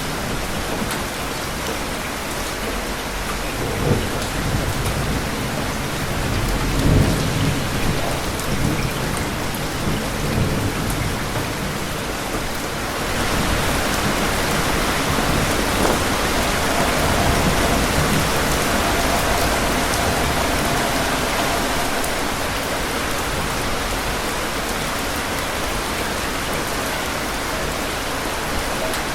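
Steady heavy rain with rolling thunder. A low rumble of thunder comes about four seconds in and a longer one from about six to eleven seconds, and the rain grows heavier about thirteen seconds in.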